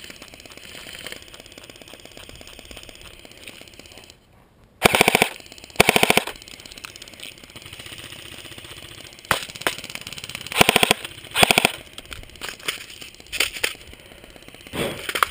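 Airsoft guns firing in short rapid-fire bursts, a quick rattle of shots; the loudest bursts come about five and six seconds in and again around ten and eleven seconds in, with shorter ones in between.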